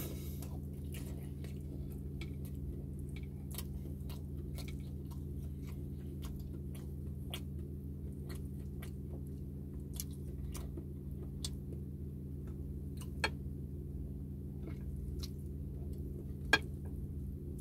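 Close-up chewing of a mouthful of tender crispy pata (fried pork knuckle) and rice, with scattered small wet mouth clicks and smacks. Two sharper clicks stand out near the end, over a steady low hum.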